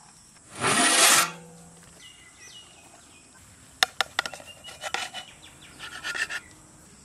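Lid coming off a large aluminium biryani pot after dum cooking, with one loud rushing noise about half a second long, then a metal ladle scraping and clicking against the pot as the cooked rice is turned over from about four seconds in.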